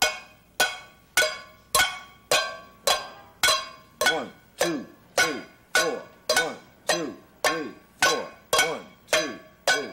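Empty tin can struck as a drum in a steady beat, a little under two strikes a second, each strike ringing briefly with a metallic clank. This is the basic four-beat pulse of a simple rhythm exercise.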